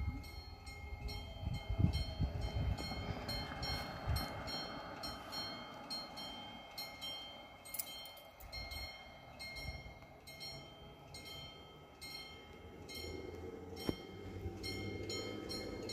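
Level crossing warning bell ringing over and over at a steady pace, each strike leaving a ringing tone, as the crossing closes and the barriers come down. A low rumble runs underneath.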